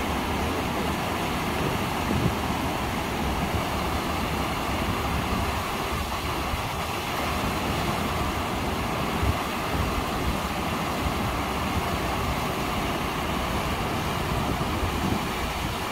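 Water rushing steadily over a stepped rock cascade at Ara Falls, a man-made waterfall, a constant even rush with no breaks.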